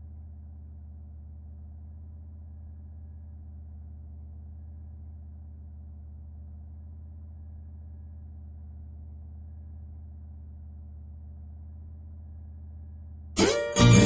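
Vehicle engine idling with a steady low hum. Near the end, loud music from the car's sound system cuts in.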